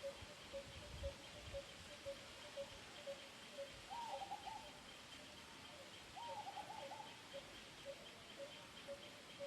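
Birds calling: one repeats a single low note about twice a second, steadily, while another gives two short, quick runs of falling notes, about four and six seconds in. The whole is faint.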